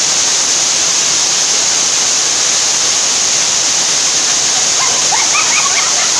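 Waterfall pouring over rock into a shallow pool: a loud, steady rush of falling water.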